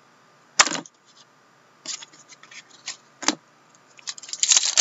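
Trading cards and cardboard being handled and set down: a few separate sharp clicks and taps, the loudest about half a second in. Near the end comes a dense crinkling as a foil card-pack wrapper is opened and the cards are pulled out.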